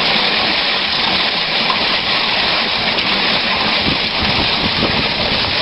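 Foot-pedal rice thresher running, its spinning drum stripping grain from rice stalks fed into it, with a steady rushing noise of grain spraying against the machine.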